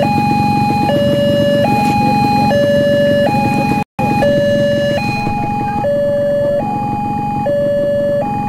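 Railway level-crossing alarm sounding its warning that a train is approaching: two electronic tones alternating high and low, each held for just under a second. The sound cuts out for an instant about four seconds in.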